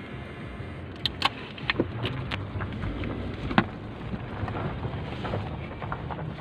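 Car driving on an unpaved gravel road, heard from inside the cabin: a steady low rumble of tyres and engine, with scattered sharp clicks and knocks.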